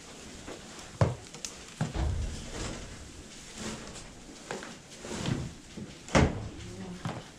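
A few sharp knocks and clunks: one about a second in, another near two seconds, and the loudest about six seconds in.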